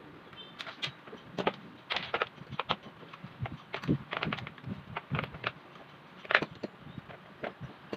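Irregular clicks, knocks and rattles of an orbit ceiling fan's plastic housing and motor assembly being handled and pulled apart, with one sharper knock about six seconds in.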